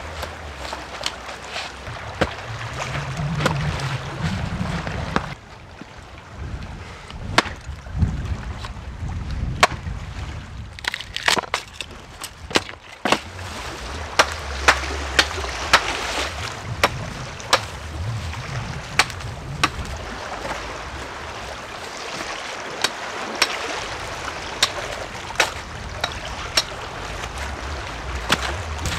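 Spruce boughs and dry twigs rustling and snapping as they are handled and pushed into a shelter's branch roof, with sharp cracks scattered throughout.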